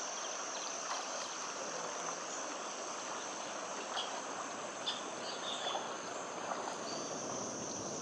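Steady rush of river rapids, with a continuous high-pitched insect drone over it and a few short high chirps about halfway through.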